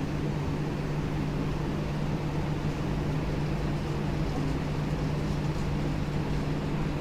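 A steady, even machine hum with a constant low tone.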